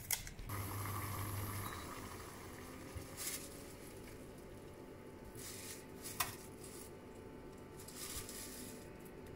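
Water simmering in a small enamel pot on the hob, a steady soft bubbling hiss, with a few dry, papery rustles as cut dried lotus leaf pieces are scooped by hand and dropped in.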